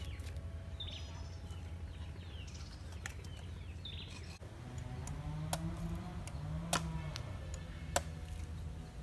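Small birds chirping over a steady low outdoor rumble. In the second half come three sharp knocks of a large knife striking a green coconut.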